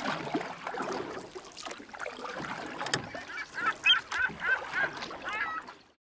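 Bird calls: a run of about eight short, repeated calls, roughly three a second, starting about three seconds in over a busier mixed background, with a sharp click just before them; the sound fades out near the end.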